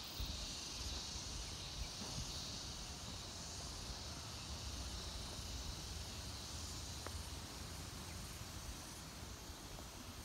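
Steady, high-pitched chorus of insects droning in the surrounding tropical vegetation, with a low rumble underneath.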